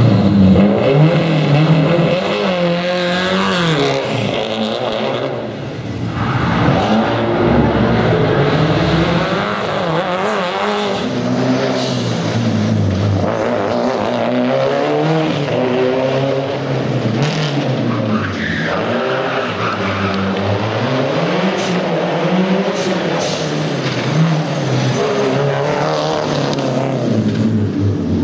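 Subaru rally car's engine being driven hard on a stage, its pitch rising and falling over and over as it revs up and drops through the gears.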